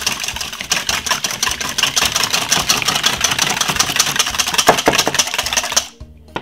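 Metal wire whisk beating two eggs in a stainless steel bowl: a fast, steady clatter of wires against the metal that stops near the end.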